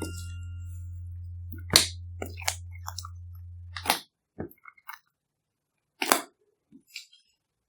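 Glossy slime being squeezed and worked by hand, with trapped air popping in sharp, scattered crackles: four loud pops, the loudest less than two seconds in, and several smaller clicks between them.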